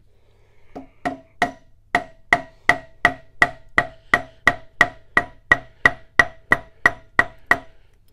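About twenty sharp mallet blows in a steady rhythm, roughly three a second, each with a short metallic ring. They are struck against a ratchet wrench on the stuck end of a milling-machine table lead screw to break it loose, but they shift the whole table instead of freeing it.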